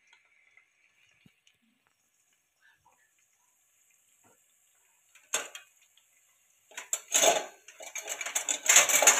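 Very quiet for about five seconds, then a sharp clink followed by two stretches of a spoon clattering and scraping against a metal vessel as lumps of solidified ghee are spooned out for the pot.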